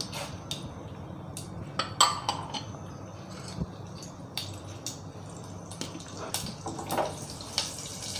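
Mustard and fenugreek seeds sizzling in hot sunflower oil in a pot, with scattered small pops and crackles throughout.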